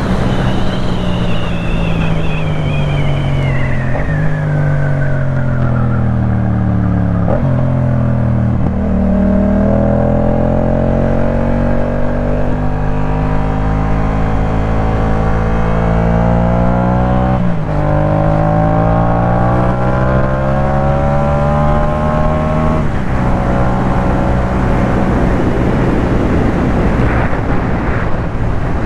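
2018 Yamaha MT-07's 689 cc parallel-twin engine running through a Jeskap K4 full exhaust while ridden. The engine note falls as the bike slows, with two downshifts in the first eight seconds, then climbs steadily under acceleration, with an upshift a little past the middle and another about three quarters of the way in, and settles to a steady cruise. A high whine falls away in pitch over the first few seconds.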